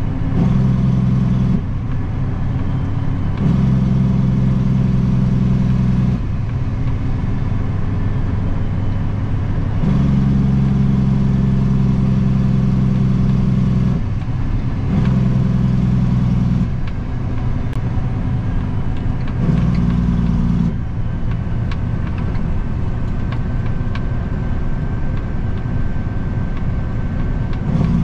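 Kenworth W900 dump truck's diesel engine heard from inside the cab while driving, its note swelling louder and deeper in spells of a few seconds, about five times, and dropping back in between.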